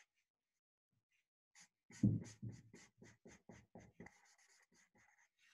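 Felt-tip marker scratching across paper in quick, short strokes, about four or five a second, starting after a second and a half of quiet and thinning out near the end.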